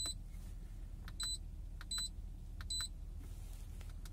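Nissan Elgrand E51 dash display's key beeps: four short high-pitched beeps, each with a faint click, as the arrow key is pressed to scroll down the settings menu.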